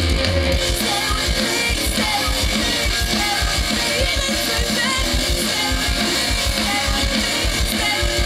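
Live rock band playing: strummed electric guitars over bass and a drum kit keeping a fast, steady beat.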